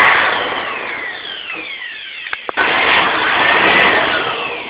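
Handheld electric air blower running, blowing air over the inside of a CRT monitor to dry the parts after cleaning. It cuts out briefly with a click about two and a half seconds in, then runs again.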